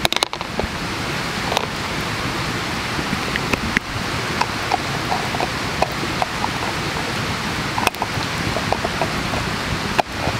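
Wood campfire crackling, with scattered sharp pops and ticks over a steady rushing hiss.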